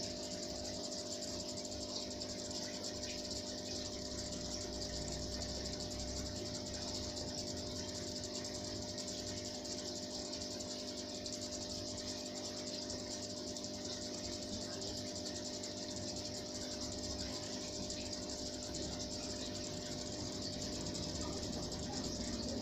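Steady hum from the aquarium's submersible pump, with a constant high-pitched trill like crickets over it.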